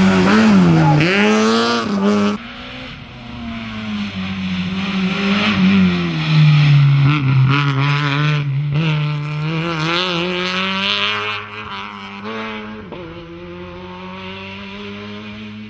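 Citroën Saxo rally car's engine revving hard, the pitch rising and falling as it accelerates and lifts off. About two seconds in the level drops sharply, and the engine is heard farther off, swelling again as the car comes closer and fading near the end.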